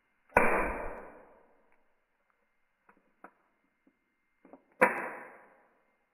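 Utility lighter clicking at a burner cup, twice: each a sharp click followed by a rush of noise as the flame catches, dying away over about a second. A few faint ticks come between the two.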